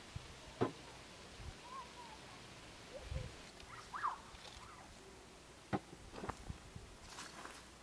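Quiet outdoor ambience with a few faint bird chirps and two soft knocks, one about half a second in and one near six seconds, and light rustling near the end.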